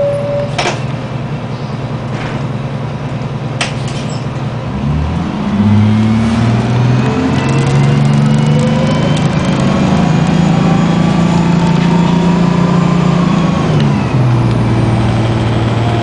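The two-stroke Detroit Diesel 6V92TA V6 diesel of a 1994 New Flyer D40 bus, heard from inside the cabin. It runs quietly at first with a couple of clicks, then about five seconds in it pulls harder as the bus accelerates, with a rising whine and an engine note that changes pitch in steps, easing off near the end.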